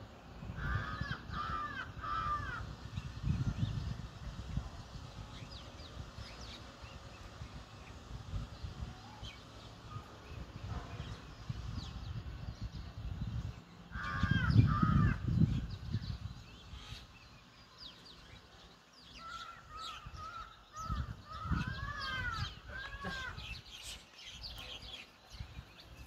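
Sparrows chirping in short, high notes, with runs of three or four lower arched calls from another bird: one run near the start, one in the middle and several toward the end. A low rumble swells a few times and is loudest around the middle.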